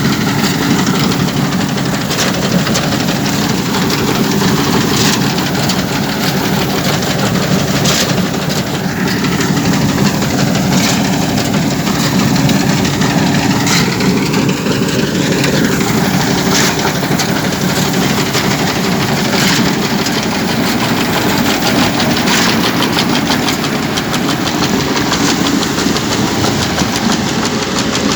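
Massey Ferguson 780 combine harvester running steadily while harvesting wheat, its engine drone mixed with irregular rattles and clicks from the machine.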